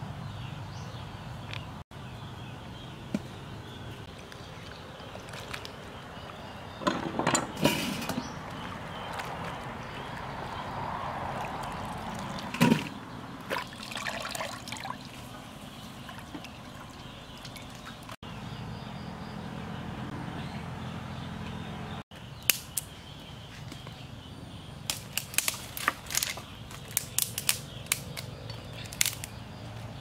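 Hands swishing wild mushrooms in a metal bowl of water, with splashes now and then. A run of sharp clicks comes near the end.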